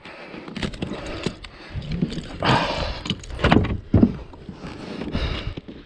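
Handling a freshly landed striped bass in a landing net on a plastic fishing kayak: irregular knocks and thumps against the hull and gear with rustling, the sharpest knocks about three and a half and four seconds in.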